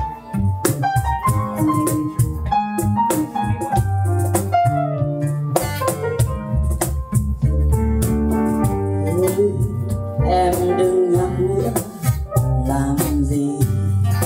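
A small live band playing an instrumental passage: acoustic guitar strummed over keyboard chords and low notes, with the singer's voice coming back in over the last few seconds.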